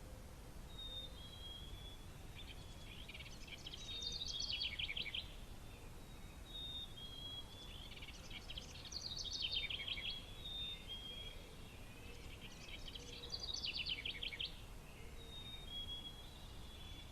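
A songbird singing the same song over and over, a new phrase about every four to five seconds: a few thin high notes, then a fast trill. A steady low background rumble runs underneath.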